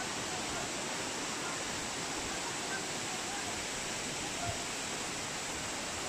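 Waterfall rushing: a steady, unbroken noise of falling water.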